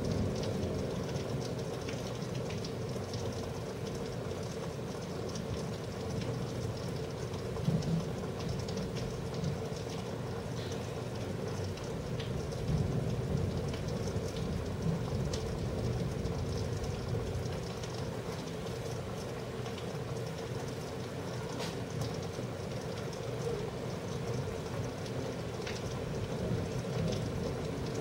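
Steady rain falling during a thunderstorm, with scattered drips and taps over a low rumble.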